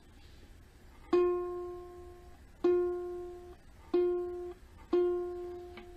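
Single string of a Kala Ukadelic soprano ukulele plucked four times at the same pitch, each note ringing briefly before being cut off. It is the G string being tuned, still flat and sounding at about F.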